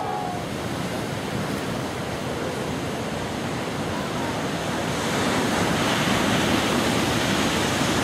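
Giant ocean waves breaking: a steady roar of crashing surf and whitewater, growing louder about five seconds in.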